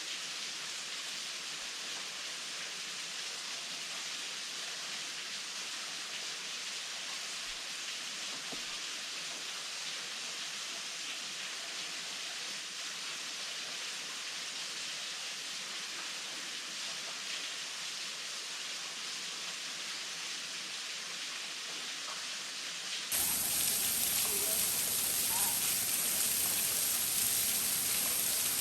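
Steady hiss of falling water from a small waterfall. About 23 seconds in the sound cuts to a louder take, where a high, steady buzz joins the water.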